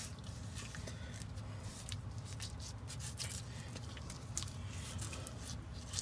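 Gloved hand pressing and working wet hydraulic cement into a gap between rocks, making soft, irregular squishing and scraping ticks close to the microphone, over a steady low hum.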